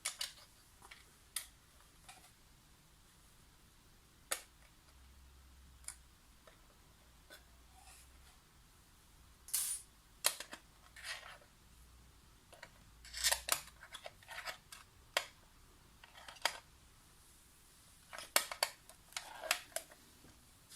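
Scattered light clicks and taps of small screws and the plastic case of an RC hand controller being handled, with a few quick runs of clicks about halfway through and near the end.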